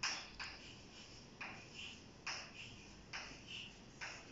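Chalk on a chalkboard: about six short, sharp strokes and taps at uneven intervals as answers are marked on the board.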